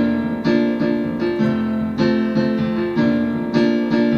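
Electric piano or keyboard accompaniment playing sustained chords, re-struck about twice a second.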